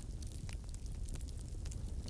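Burning wood fire crackling: a steady low rumble of flames with many small irregular pops and snaps.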